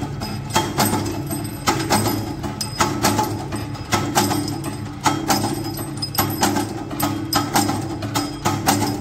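Flywheel-driven mechanical power press running with a steady hum, giving a sharp metallic clank at each stroke as it cuts a steel rod into short pieces for leaf-spring center bolts. The clanks come about one to two a second at uneven spacing.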